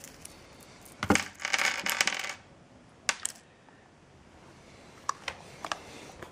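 Small metal screws clinking: a sharp clatter about a second in, a ringing metallic rattle lasting about a second, then a few light clicks.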